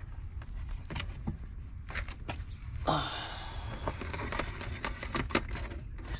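Hands handling a side marker light's wiring and plastic parts: scattered light clicks and rustles, with a longer scraping rustle about three seconds in.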